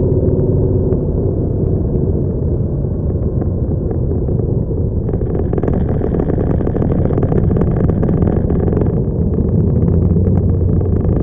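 Motorcycle engines running steadily in a slow group ride, heard from a bike-mounted camera on one of the motorcycles. A rush of noise joins about five seconds in and stays.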